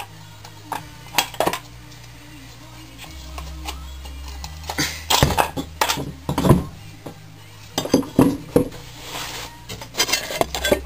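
Metal parts of a Sachs engine clinking and knocking as the engine case is worked apart by hand: scattered sharp clinks at first, then a busy run of knocks and clinks from about halfway on.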